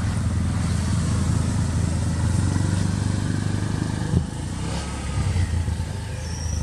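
An engine idling steadily, a low, even rumble.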